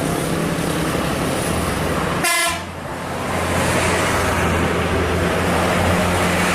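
Bus engine running steadily, with one short horn toot a little over two seconds in.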